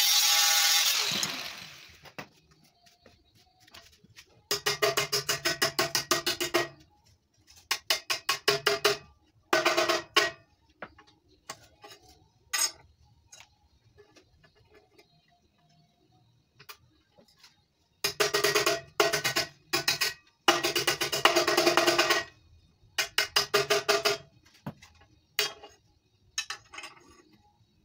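An angle grinder spinning down with a falling whine over the first two seconds. It is followed by a series of short electric arc welding tacks, about ten bursts of crackling buzz each lasting up to two seconds, with quiet pauses between them, as steel flat-bar straps are welded onto the gas cylinder's door.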